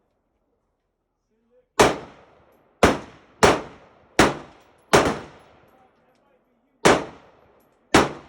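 6.5 Grendel AR-15 pistol firing seven shots: five in fairly quick succession starting about two seconds in, then two more near the end. Each report is sharp and rings out for about a second.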